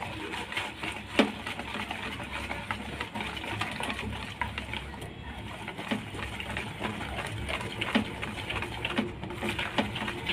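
Wire whisk beating thick gram-flour (besan) batter in a plastic bowl: a quick, uneven run of light taps and clicks from the wires striking the bowl, with one sharper knock about a second in. The batter is being beaten to whip air into it.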